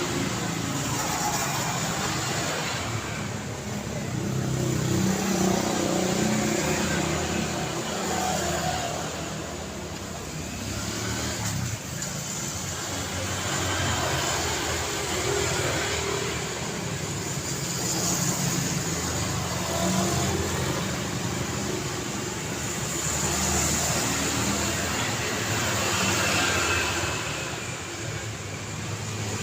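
Road traffic on a city street: a continuous wash of car engines and tyre noise that swells and fades every few seconds as vehicles pass.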